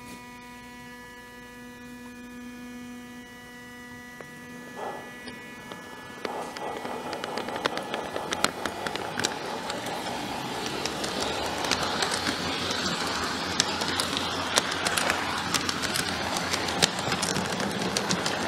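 G-scale model train running on its track, heard from track level: a steady hum for the first few seconds, then, about six seconds in, a rolling rumble with many sharp clicks of the wheels on the rails that grows louder.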